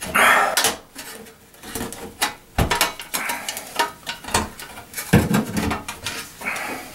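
Irregular metallic clinks, knocks and a scrape as the metal parts of a bathroom exhaust fan are handled and fitted together during a motor replacement, with a couple of heavier knocks.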